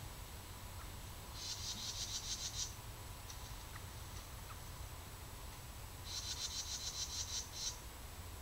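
A small animal's high, rapid trill, heard twice, each about a second and a half long and about four seconds apart.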